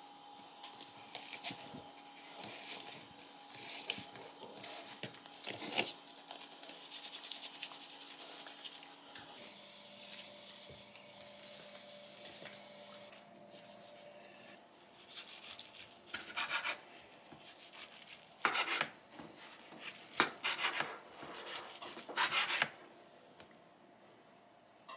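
Bamboo rolling mat rubbing and clicking as a gimbap roll is pressed and rolled in it, then a knife sawing through the seaweed-wrapped roll on a wooden cutting board in several loud rasping strokes in the second half.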